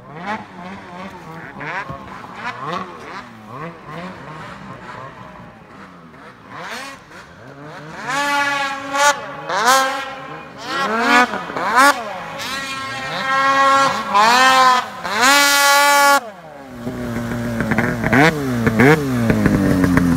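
Two-stroke mountain snowmobile engines revving in repeated bursts, the pitch climbing and dropping with each throttle blip as a sled works through deep powder; the revving gets much louder about eight seconds in. Near the end, a closer snowmobile engine runs at a lower, falling pitch.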